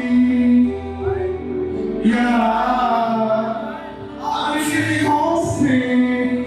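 Music with a singing voice over a steady bass line, the voice holding long notes that slide in pitch.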